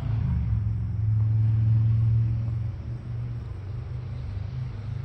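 Steady low mechanical hum, like an engine or motor running, which eases off a little about halfway through.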